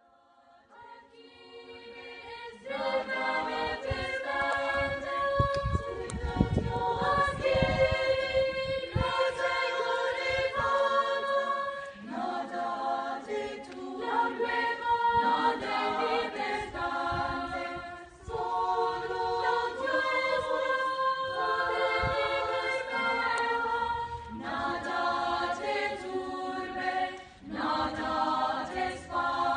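A choir singing in harmony, fading in over the first two seconds or so, in long held phrases with short breaks between them.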